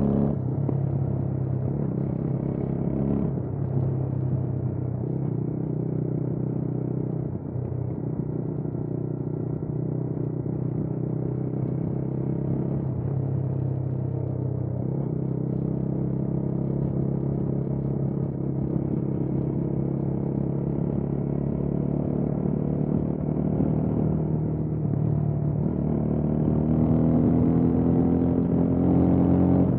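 Motorcycle engine running under way, heard through a muffled onboard microphone. It holds a steady pitch, drops briefly about a quarter of the way in, and rises in pitch over the last few seconds as the bike speeds up.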